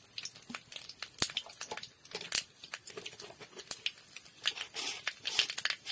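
Dried red chillies frying in a little hot oil in a wok, sizzling with irregular crackles and pops.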